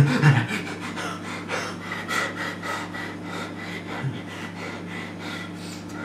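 A man panting hard and fast, about four or five quick breaths a second, over a steady low hum.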